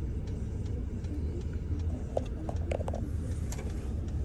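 Steady low rumble of an idling car heard from inside the cabin, with a faint regular ticking about two to three times a second and a few small clicks and knocks in the middle.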